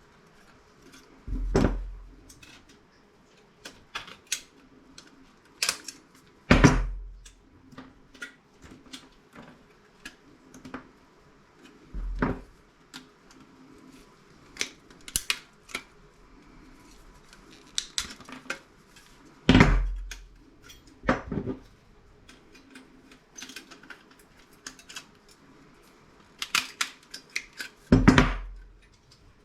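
Hand snips cutting thin sheet steel, with a run of sharp clicks and metallic snips and several louder clanks of metal being handled or set down.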